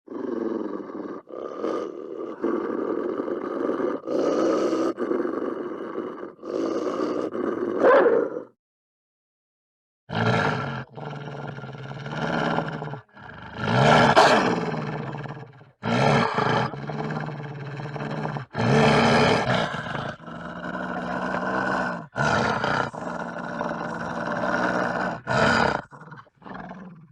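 Several wolves howling together in long, overlapping howls at different pitches, some gliding up and down. The howls stop for a second or two about a third of the way through, then start again.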